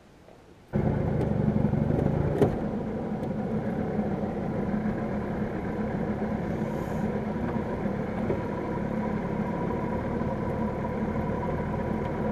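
Small 15 hp outboard motor running steadily, coming in abruptly about a second in, with a single sharp knock about two seconds in.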